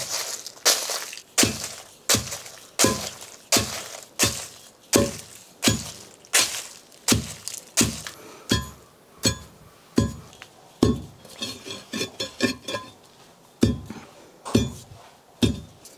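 A long iron pounding rod striking crisp fried dried red chillies and spices in a stone mortar, crushing them into sambar powder. Steady pounding at about three strokes every two seconds, each a knock with a metallic clink. About two-thirds of the way in comes a run of quicker, lighter strikes that ring.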